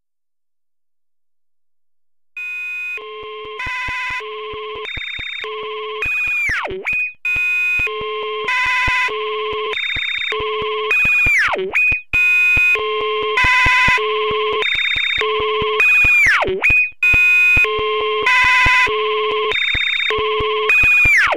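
Experimental electronic soundtrack: synthesized beeps on a few fixed pitches in a looping, ringtone-like pattern over regular clicks. A sharp downward swooping tone comes about every five seconds. It starts after about two seconds of silence.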